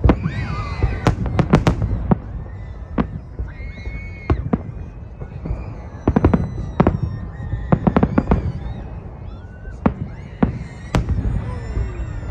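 Fireworks salute: clusters of sharp bangs, several in quick succession about a second in, around six to seven seconds in and again near the end, over a continuous low rumble of more distant bursts.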